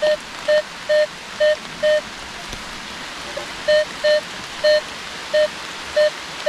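Minelab Manticore metal detector giving short, identical target beeps, about two a second, as the coil is swept back and forth over a buried metal target, with a pause of about a second and a half in the middle. Steady rain hiss runs underneath.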